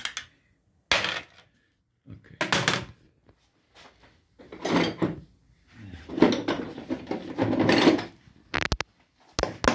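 Workshop handling noises: several separate bursts of clattering and scraping of metal parts, then a quick run of sharp knocks near the end.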